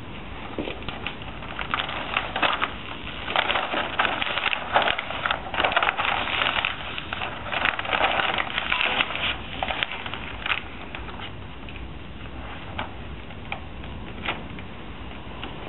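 Plastic laminating film crinkling and crackling as hands pull and smooth it across the laminator rollers: a dense run of crackles that thins to scattered clicks in the second half.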